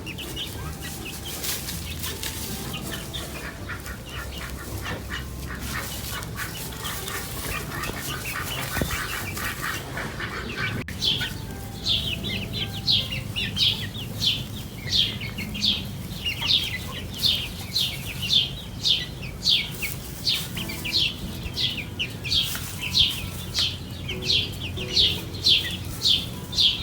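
Birds calling. After a cut about eleven seconds in, a high, short falling chirp repeats about twice a second.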